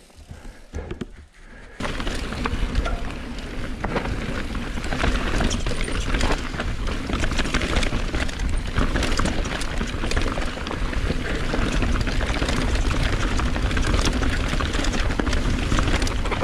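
Mountain bike ridden fast down a rough trail: wind buffeting the helmet camera's microphone with the rattle and clatter of tyres and bike over rocks and roots. It starts suddenly about two seconds in and keeps going steadily.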